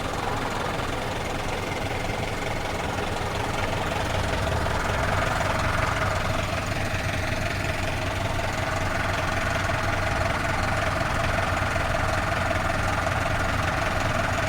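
Off-road vehicle engine running steadily under way, growing a little louder about five seconds in.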